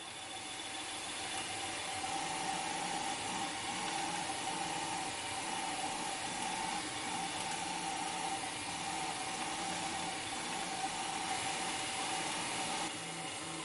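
3D printer running while printing: a steady whirring hum over a hiss, fading in over the first couple of seconds.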